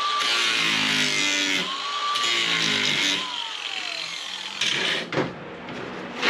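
Angle grinder grinding on car-body sheet metal, its motor whine sagging under load, picking back up about a second and a half in, then winding down after the trigger is released about three seconds in. A few short metal knocks follow near the end.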